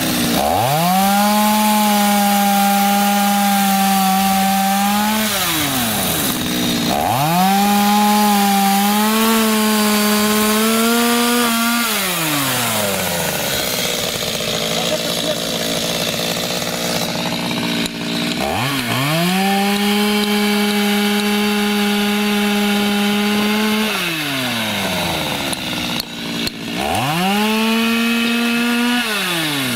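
Chainsaw cutting off the tops of wooden piles. It revs to full throttle for about five seconds and then drops back to idle, four times over, with a longer idle in the middle and a shorter final cut.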